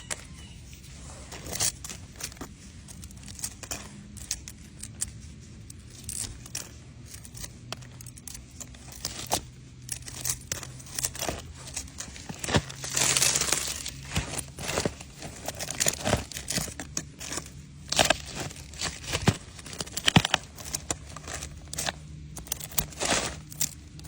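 Leaves crinkling and tearing as they are picked off with tweezers: a run of irregular sharp crackles and snaps, with a longer rustle about 13 seconds in.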